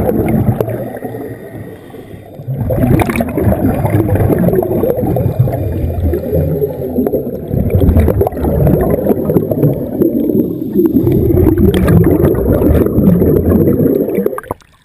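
Scuba divers' exhaled bubbles rushing and gurgling around a GoPro's waterproof housing underwater, in long surges with brief lulls between them. The sound cuts off sharply near the end as the camera breaks the surface.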